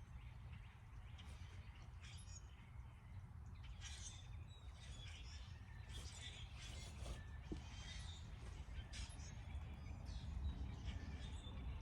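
Birds chirping and calling in short, scattered bursts over a steady low rumble.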